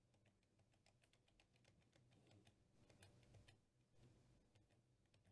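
Near silence with faint, scattered rapid clicks and a low hum underneath.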